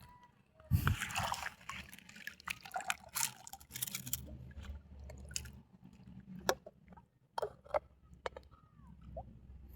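Water splashing and dripping, with a loud splash about a second in followed by scattered clicks and knocks.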